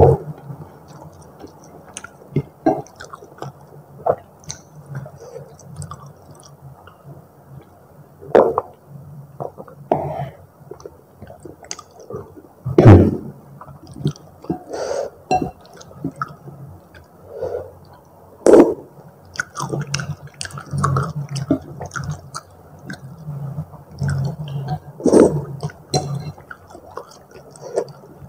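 Close-miked chewing of Indomie goreng rendang instant noodles: irregular wet mouth clicks and smacks, a few of them louder.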